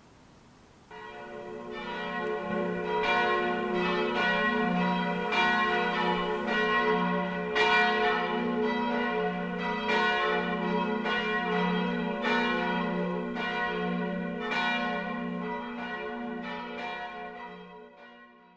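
Church bells ringing in a peal, several bells struck over one another with a lingering hum. They fade in about a second in and fade out near the end.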